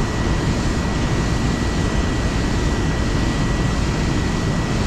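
Water rushing over a low-head dam spillway: a steady, unbroken roar, heaviest in the low end.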